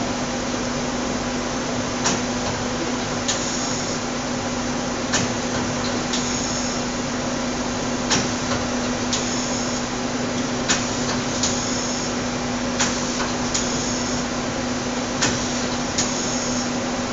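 Daewoo Puma 400 CNC lathe running with a steady hum and tone while its tool turret indexes from station to station. Each index gives a pair of metallic clunks about a second apart, the second often ringing, with a new pair every two to three seconds.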